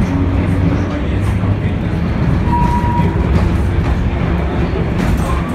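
Vintage M-24 tram running, heard from inside the wooden passenger car: a steady low rumble of wheels on rail and car body. A brief high-pitched tone sounds about halfway through.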